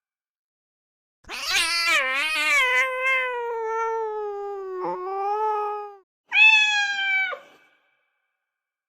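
Domestic cat meowing: a long, drawn-out meow that wavers in pitch for about five seconds, then a shorter meow that drops in pitch at the end.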